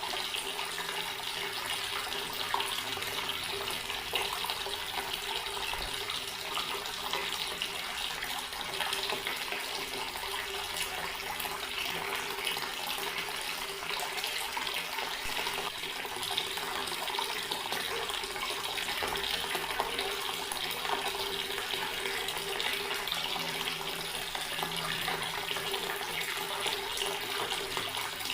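Water running steadily from a tap, a continuous even rush of splashing water.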